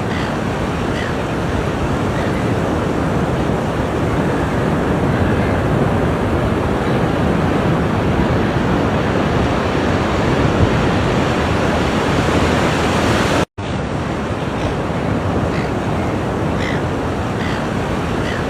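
Ocean surf washing onto the shore in a steady, continuous rush. The sound cuts out abruptly for an instant about three-quarters of the way through, then resumes.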